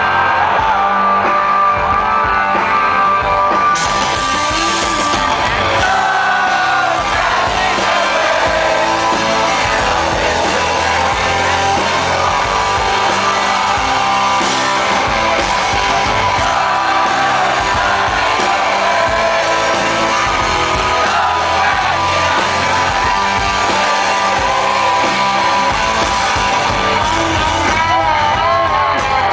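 Live rock music: a band playing with singing over it.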